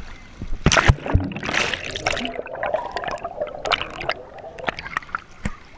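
Water rushing and splashing down a water slide, with several sharp knocks about a second in and scattered clatter after.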